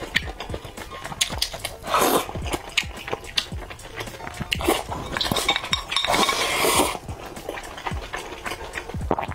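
Close-miked eating of braised meat and rice with chopsticks: wet chewing and mouth sounds with many small clicks, and two longer noisy passages, one about two seconds in and one from about six to seven seconds.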